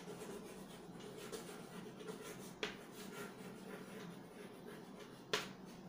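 Chalk scratching and tapping faintly on a blackboard as words are written, with a sharper tap about two and a half seconds in and a louder one near the end.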